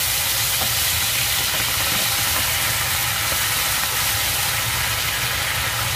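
Minced-meat sauce with onion, ketchup and water sizzling and bubbling in a hot pan as it reduces: a steady hiss, with a steady low hum underneath.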